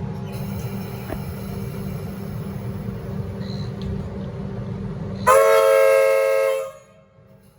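The RVB three-chime horn of a Metro Comeng electric train sounds one loud chord blast of about a second and a half, near the end. Before it there is a steady low rumble with a faint high whine.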